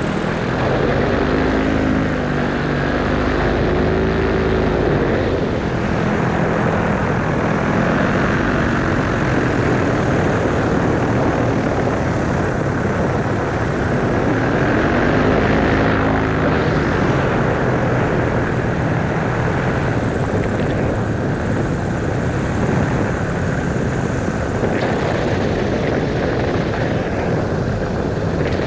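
Vittorazi Moster 185 single-cylinder two-stroke paramotor engine and propeller running under power, its pitch rising and falling with the throttle around two to five seconds in and again about fifteen seconds in.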